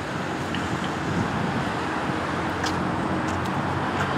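Steady road traffic noise with a low engine hum underneath and a few faint clicks.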